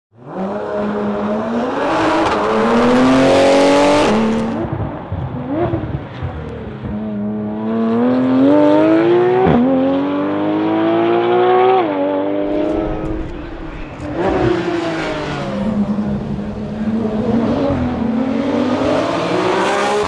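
Porsche 911 GT3's naturally aspirated flat-six engine revving hard as the car accelerates, its pitch climbing in repeated runs that each drop off suddenly at a gear change or lift.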